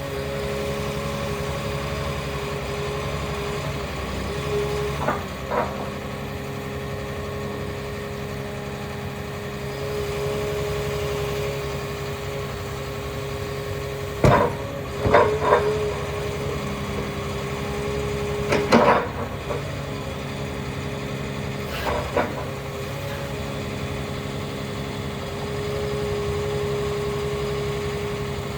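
Caterpillar 323E excavator's diesel engine running steadily with a whining tone over it. Sharp metallic clanks come several times, singly and in quick clusters, and the engine swells a little twice.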